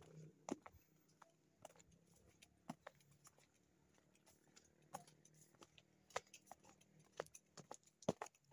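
Faint footsteps on a gravel footpath: irregular light crunches and clicks, a little louder near the end.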